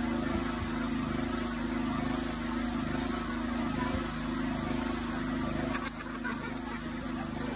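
Small petrol engine of a concrete power trowel running steadily at a constant speed.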